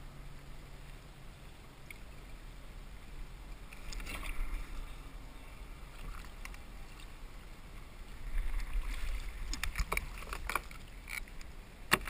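Hooked Chinook salmon splashing at the surface beside a kayak as it is brought to the net, in bursts about 4 seconds in and again from about 8 seconds. Sharp knocks and rattles of the landing net and gear against the kayak follow, the loudest near the end.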